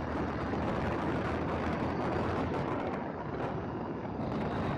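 Motorcycle engine running steadily under way, with a steady rush of wind and road noise over it.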